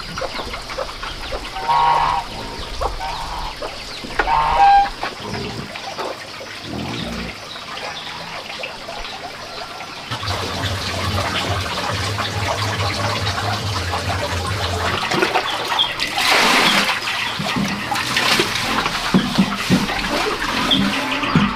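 A few short bird calls in the first five seconds, then water being scooped and poured into a large pot, with splashing loudest a little past halfway through.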